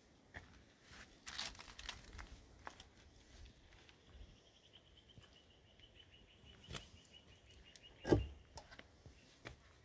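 Faint rustling and crunching, with a dull thump about eight seconds in, over a faint, fast, high ticking trill from about four seconds in.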